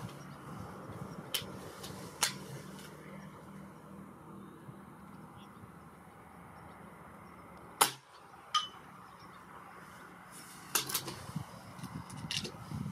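A single shot from a .177 Reximex Throne Gen-2 PCP air rifle: one sharp crack about eight seconds in, the loudest sound here. Lighter clicks come before and after it.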